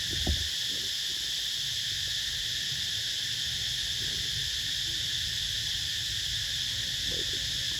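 Steady high-pitched drone of insects, constant throughout, over a low rumble, with one brief low thump shortly after the start.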